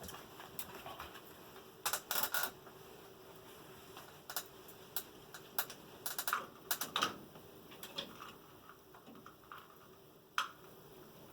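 Scattered light clicks and taps of handling, some in quick clusters of two or three, over a faint steady background hum.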